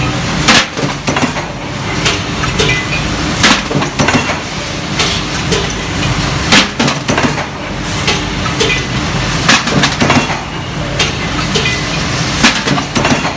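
Automatic two-up press machine running through its cycle: a steady machine hum with a loud clack about every three seconds and lighter clicks and rattles between the strokes.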